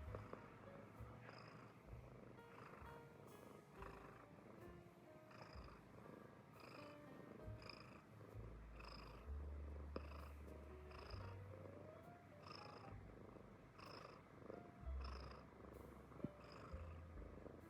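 American Shorthair cat purring: a soft, continuous low rumble.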